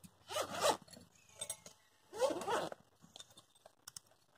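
Zip on a fishing tackle bag being pulled, two quick runs about two seconds apart, followed by light clicks and rustling of gear inside the bag.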